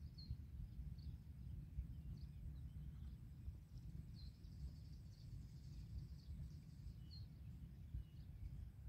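Faint open-field ambience: a low, uneven rumble underneath, with small birds giving short high chirps every second or so and a longer run of chirping around the middle.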